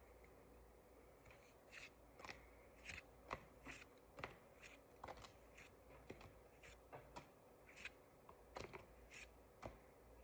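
Pokémon trading cards being flicked through one at a time, faint soft snaps about twice a second starting about a second in.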